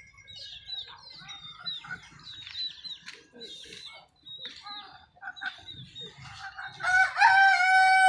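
Rooster crowing once, a loud call of about two seconds starting near the end, over a run of short, high chirps and peeps from the poultry yard.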